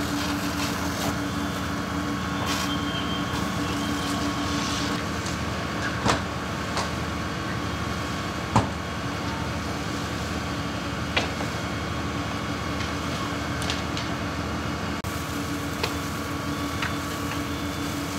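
Fire engine's diesel engine running steadily to drive its pump, a continuous mechanical drone with a steady whine in it. A few short sharp knocks come about six, eight and a half and eleven seconds in.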